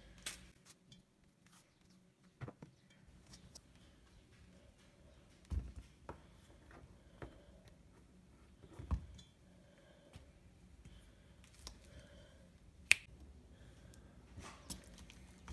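Ripe bananas being peeled and dropped into a stainless steel mixing bowl, then mashed with a metal fork. Faint scattered clicks and rustles, two soft thuds as pieces land in the bowl, and one sharp clink of the fork against the steel bowl near the end.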